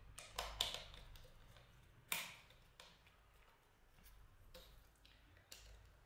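Small sharp clicks and taps of a screwdriver against the plastic and metal parts of a Shimano ST-EF41 bicycle shifter during reassembly: a quick cluster of three clicks near the start, the loudest single knock about two seconds in, then a few fainter taps.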